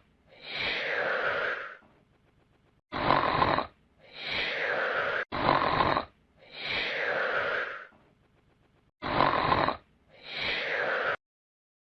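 Snoring sound effect: a loud rasping snore on each in-breath, followed by a long breathy whistle falling in pitch on the out-breath. The cycle repeats about every three seconds and cuts off abruptly near the end.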